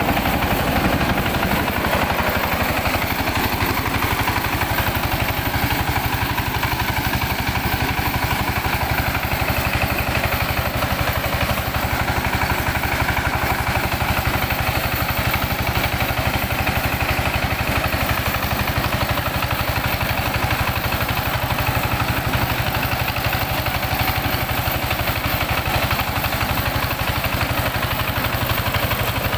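Engine of a mobile mini rice huller running steadily at an even speed.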